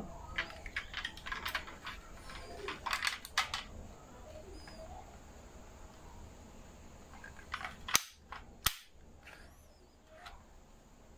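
Faint clicks and taps from a 1:24 Maisto diecast Nissan Skyline GT-R model being handled, its hinged metal doors swung open and shut. Two sharp clicks come about eight seconds in, less than a second apart.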